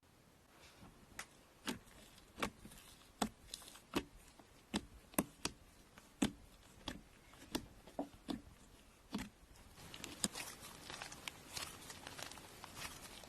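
Slime being handled, with a string of small, sharp sticky pops and clicks about one every half second to a second. Near the end these give way to a denser, fainter crackle.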